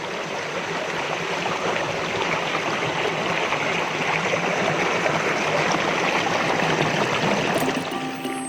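Waterfall: a steady rush of falling water. Near the end, music with bell-like mallet tones comes in.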